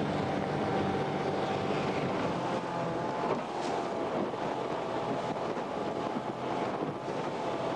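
An engine running steadily with a faint whine over a low hum, and wind buffeting the microphone.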